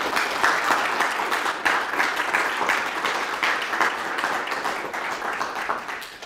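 A small audience applauding, many hands clapping at once, dying away near the end.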